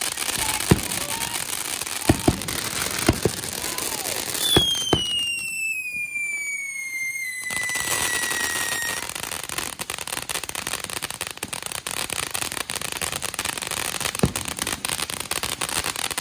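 Consumer fireworks going off: a ground fountain spraying sparks with a steady hiss, and a quick string of sharp bangs in the first five seconds, with another bang near the end. A long whistle falls in pitch from about four and a half seconds to nine seconds in.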